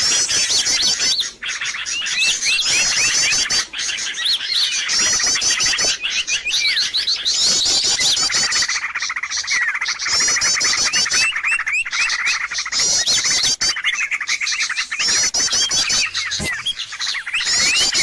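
A dense chorus of many small birds chirping and twittering at once, with overlapping quick, repeated calls: a noisy bird-lure recording meant to draw birds in.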